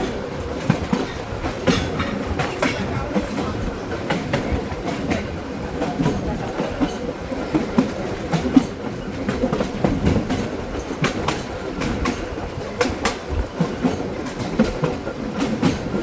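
Electric trolley car running on the track, heard from inside the wooden car body: a steady rumble with irregular clacks and knocks from the wheels and rattling car.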